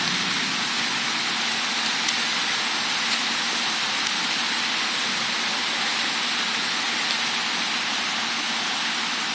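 Heavy tropical-storm rain pouring steadily: a dense, even hiss that holds at one level, with a few faint ticks of drops.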